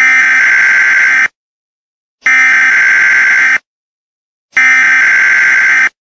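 Harsh, heavily distorted buzzer sound effect blasted three times at full volume, each blast a steady, unchanging tone about a second and a quarter long, with a second of dead silence between them.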